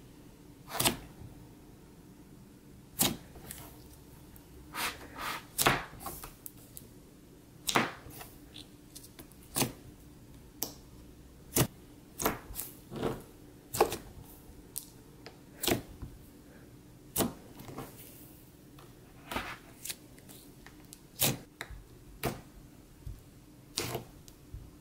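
Thick puff slime, a butter-like slime, being poked and squeezed by fingers, giving short sharp pops and clicks at irregular intervals, about one a second and sometimes two or three close together.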